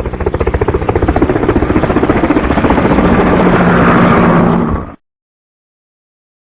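Loud engine-like mechanical sound with rapid pulsing that rises in pitch and speeds up, then cuts off suddenly about five seconds in.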